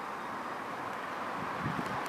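Steady outdoor background noise with wind on the microphone, and a couple of soft footsteps near the end.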